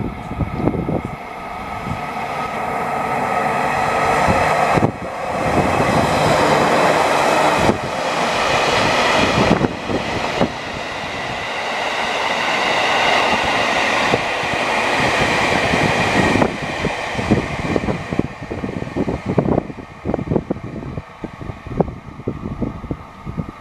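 Seven-car JR Kyushu electric multiple unit (813 series coupled to 811 series) passing through a station at speed without stopping. The train noise, with a steady whine running through it, swells over a few seconds, stays loud for about ten seconds, then fades away.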